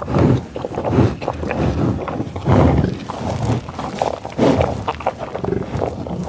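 American bison close to the microphone, giving low grunts and heavy breaths several times, with rustling and footsteps through tall grass between them.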